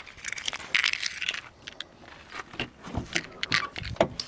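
Keys jangling and irregular clicking and rattling from handling, with a few dull thumps about three and four seconds in, as the driver's door of a Jeep SUV is opened and someone climbs in.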